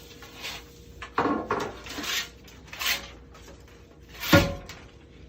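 Handling of a sliding closet door's upper track during installation: a run of short clattering and rustling noises, then a sharp knock about four seconds in, the loudest of them.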